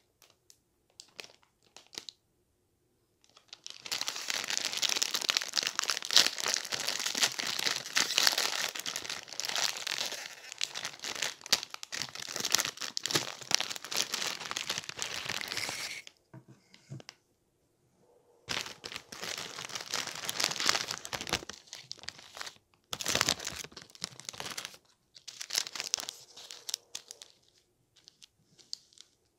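Plastic instant-noodle wrapper crinkling and tearing as it is opened and the noodle block and seasoning sachets are pulled out by hand. There is one long stretch of crinkling, then several shorter bursts, and a few small rustles near the end.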